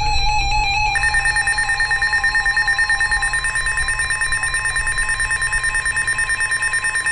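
Weather radio alert tones: a rapidly pulsing high electronic tone starts about a second in and runs for about six seconds. It gives way right at the end to a steady single tone, the start of the weather radio warning alarm tone that precedes a new severe thunderstorm warning.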